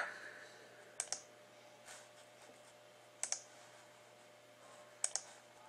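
Computer clicks while a program is set up: three quick double clicks, about two seconds apart, with one faint single click between the first two.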